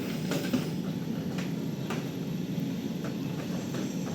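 A few light knocks and clatters of items being moved and set down on a storage shelf, over a steady low background rumble.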